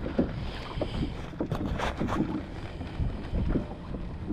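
Water lapping and splashing against a kayak's hull, with a few sharper splashes around the middle, over wind buffeting the microphone.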